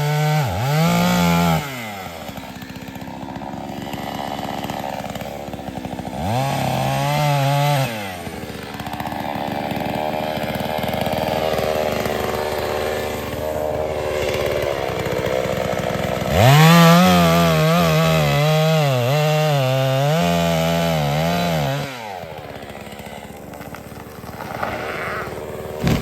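Chainsaw revving up to full throttle and cutting wood three times: briefly at the start, again about six seconds in, and in a longer cut from about sixteen to twenty-two seconds. Between cuts it drops back to a quieter, steady running.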